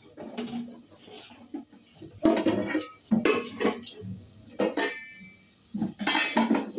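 Metal cooking pots and utensils clattering and clanking in several loud bursts, some with a brief metallic ring, as a pot is set up for making tea.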